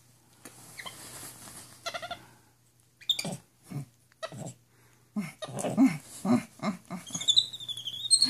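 Capuchin monkey calling in short bursts amid the rustle of bedsheets, then a long, high, wavering squeak near the end.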